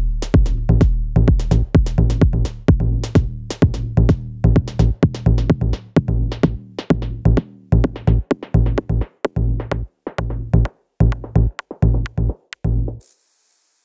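Background music with an electronic drum beat, cutting off abruptly about a second before the end.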